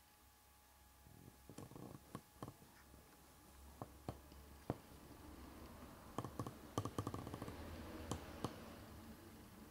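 Faint, irregular clicks and taps over a low hum, sparse at first and bunching into a quick cluster about two-thirds of the way through.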